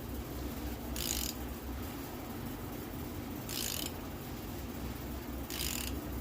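Ratchet wrench clicking in three short bursts, a couple of seconds apart, as the crankshaft of a Gen 3 5.3 V8 is turned by hand to bring the cam and crank timing marks around, over a steady background hum.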